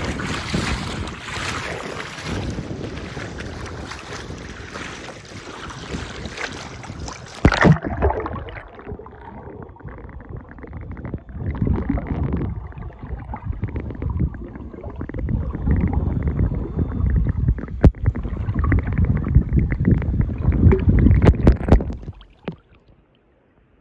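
Sea water sloshing and wind on a camera microphone held at the surface; about eight seconds in it plunges underwater with a loud splash and the sound turns muffled, a low underwater sloshing and rumbling that cuts off suddenly near the end.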